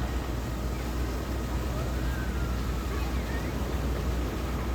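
Steady low rumble of outdoor background noise with no distinct events, a few faint high gliding tones over it.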